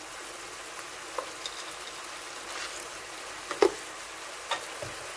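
Minced meat and onions frying in a pan with a steady sizzle, broken by a few sharp pops; the loudest pop comes about three and a half seconds in.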